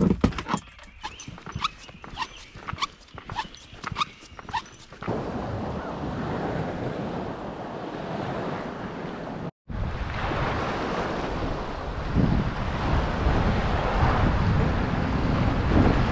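Irregular sharp clicks and clatter for about five seconds, the sound of handling a treble hook caught in waders. Then steady wind noise on the microphone over open water, broken by a brief gap about halfway.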